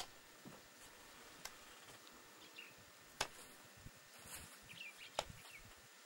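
Stone slabs clacking against one another as they are laid in a mud-mortared wall: a few sharp knocks, the loudest about three and five seconds in. Faint bird chirps sound between them.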